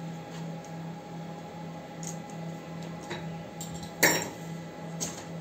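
Light clicks and one sharp knock about four seconds in, as a wooden plank is handled on a CNC router's wooden bed, over a low hum that pulses about twice a second.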